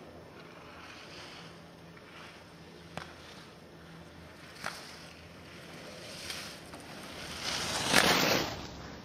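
Skis carving and scraping on hard-packed snow as a giant slalom skier passes close by: a whoosh that swells near the end and falls away. A few faint clicks come before it.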